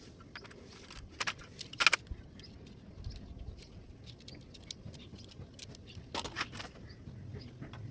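Laptop parts being handled and taken apart by hand: scattered light clicks and scrapes, with louder runs of clicking about a second and a half in and again about six seconds in.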